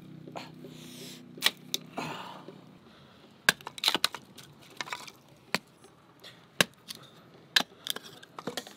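A low steady hum that fades out about two seconds in, then a string of sharp, irregularly spaced knocks and cracks, some in quick clusters.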